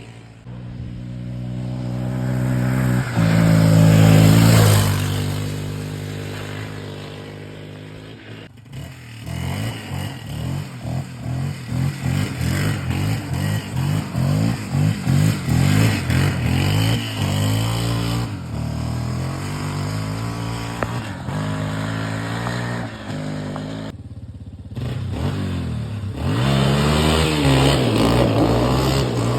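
1987 Yamaha Warrior 350 ATV's single-cylinder four-stroke engine running and being revved. It climbs to a loud rev about four seconds in and falls back. It then takes a long run of quick throttle blips, drops out briefly about three-quarters of the way through, and revs up again.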